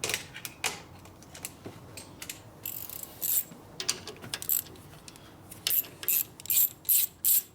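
Hand socket ratchet clicking in short runs as studs are turned out of a transmission cover, with a quicker series of clicks near the end.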